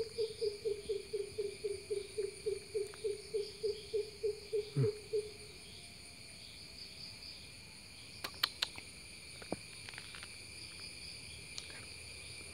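Steady shrill chorus of insects, crickets or cicadas, in humid woodland. For the first five seconds a louder even series of about twenty short low pulses sounds, about four a second, and a few sharp clicks come later.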